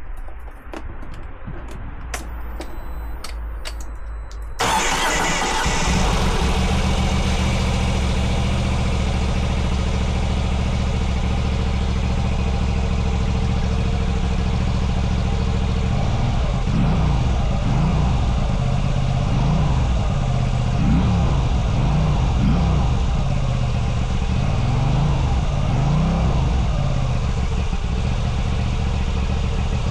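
Moto Guzzi V85 TT's air-cooled transverse V-twin being started through its exhaust. A few clicks come first, then the engine catches about four and a half seconds in and settles into a steady idle. In the second half the throttle is blipped several times, the revs rising and falling with each blip.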